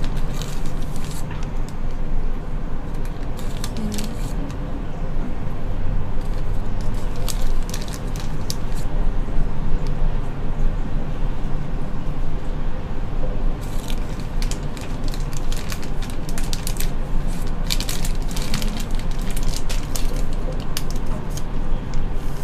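Clear zip-lock plastic bag crinkling and rustling as it is handled, in clusters of sharp crackles, over a steady low hum.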